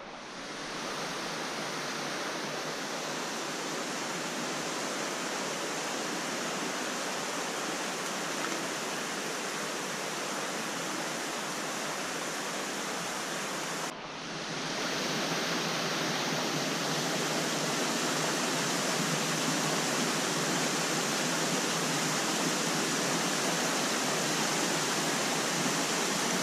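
Steady rush of falling water in a gorge, a waterfall or fast stream, an even unbroken roar with a brief dip about halfway through, after which it continues a little louder.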